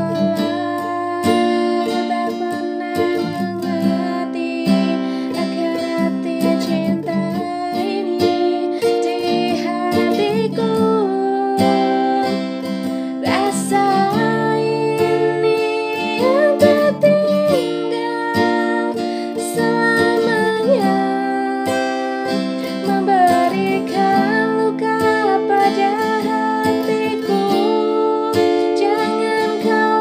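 Strummed acoustic guitar with a woman singing a melody over it.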